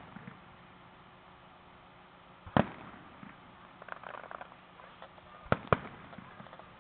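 Aerial fireworks shells bursting: one sharp bang about two and a half seconds in, then two bangs in quick succession about three seconds later.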